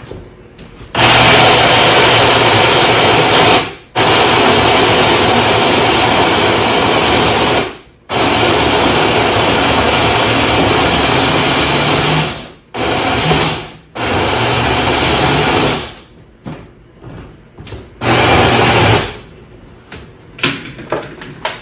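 Countertop blender running in a series of pulses, each a few seconds long with short breaks between, the last ones shorter, as it purées puppy food and goat milk into a soupy weaning mush.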